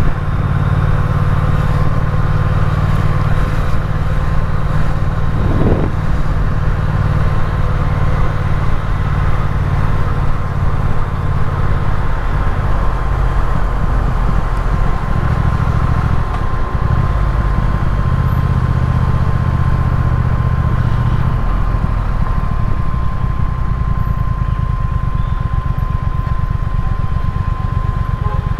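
Triumph Speed Twin's parallel-twin engine running under way, heard from the bike with road and wind noise; its engine note shifts up and down a few times through the middle of the stretch as speed changes.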